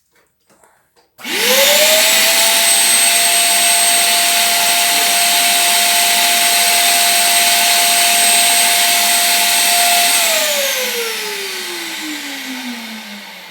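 Electrolux A10 wet-and-dry vacuum cleaner switched on about a second in, its motor spinning up to a steady high whine with a strong rush of air, then switched off about ten seconds in and winding down with a falling pitch. Its safety float is stuck shut, so the motor runs but the vacuum does not suck.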